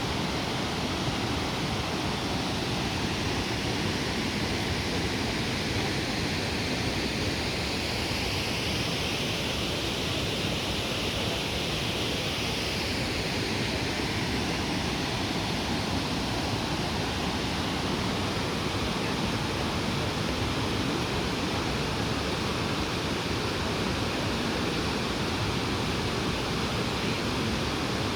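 Torc Waterfall rushing: water pouring over the rocks in a loud, steady roar of white noise with no breaks.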